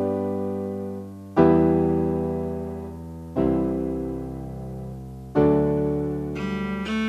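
Background music on a piano-like keyboard: sustained chords struck about every two seconds, each ringing out and fading. Quicker notes come in near the end.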